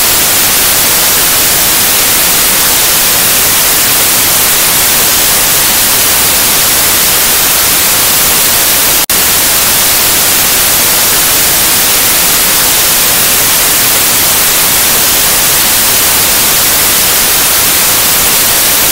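Loud, steady television static hiss, strongest in the high end, with one split-second dropout about nine seconds in. It cuts off suddenly near the end.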